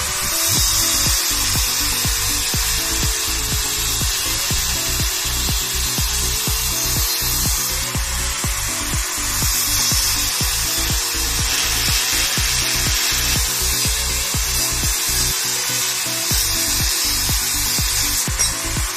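Power tool working on steel: a loud continuous hiss with irregular crackling. Background music plays underneath.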